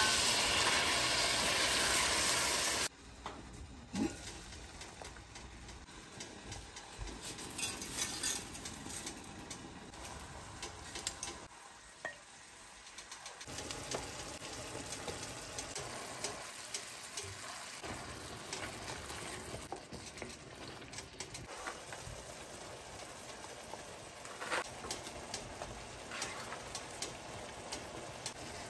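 Tomato sauce sizzling in a stainless-steel pan while a wooden spatula stirs it: a loud, even sizzle for about the first three seconds, then a quieter sizzle with scattered clicks and scrapes of the spatula against the pan.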